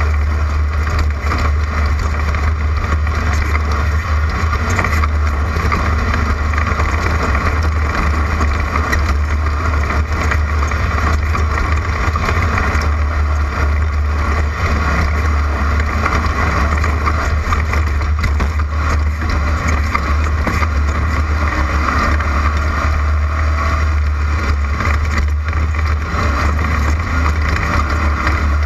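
Class 11 stock VW Beetle desert race car, its air-cooled flat-four engine running steadily under way, with a heavy low drone and constant road and wind noise.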